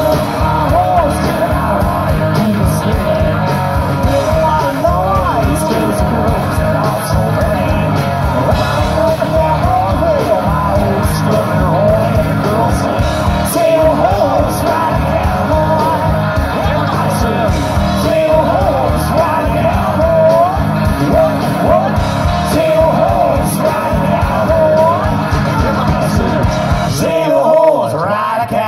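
Live rock band playing loudly, with electric guitars, bass and drums under a singer. Near the end the drums and bass drop away and pitched sound rings on.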